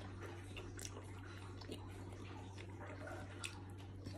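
A person chewing a bread-and-lettuce sandwich with her mouth close to the microphone: soft, wet mouth clicks and smacks, a couple of them sharper, over a steady low hum.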